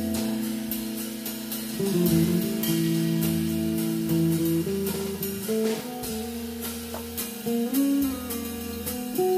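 Live jazz trio music: a hollow-body electric guitar plays long held notes and chords that change every second or two, over a drum kit with regular cymbal strokes.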